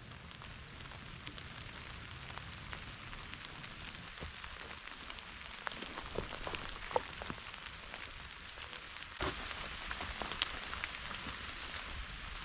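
Steady rain falling, with single drops tapping at irregular moments over the hiss; it gets slightly louder about nine seconds in.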